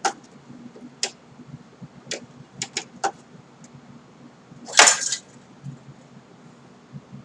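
Irregular sharp clicks from the Singer 7-34 industrial sewing machine and the leather being worked, with a brief louder scraping rustle about five seconds in, over a faint steady low hum.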